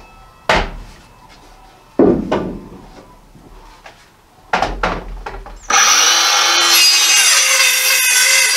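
Wooden boards being knocked and shifted on sawhorses a few times, then a cordless circular saw cutting through a wooden board from about six seconds in.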